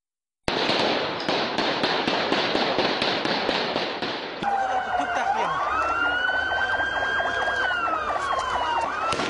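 An emergency vehicle siren wailing in a slow cycle: it rises, holds, falls, then starts rising again near the end. Before it, after a cut about four seconds in, there is loud, noisy street commotion.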